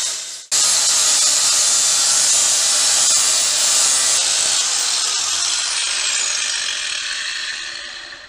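Angle grinder cutting 2 mm-wall rectangular steel tube: a loud, steady hissing whine. It cuts out briefly about half a second in, starts again at once, and fades away near the end.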